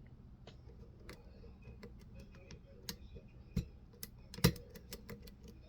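Lock pick clicking and tapping against the pins of a pin-tumbler challenge lock during single-pin picking: a dozen or so light, irregular metallic clicks, with two louder ones near the middle.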